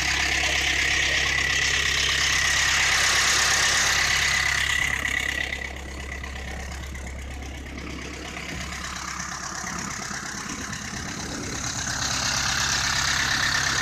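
Ursus C-4011 tractor's diesel engine idling shortly after a cold start in freezing weather. It is louder at first, turns quieter about halfway through, and grows louder again near the end.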